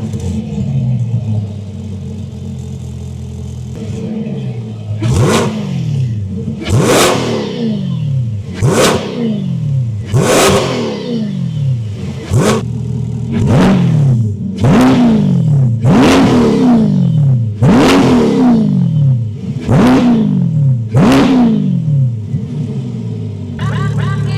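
Corvette C8 V8 idling through a titanium valved exhaust, then blipped about eleven times in quick succession, each rev rising sharply and falling back to idle, before settling into idle near the end.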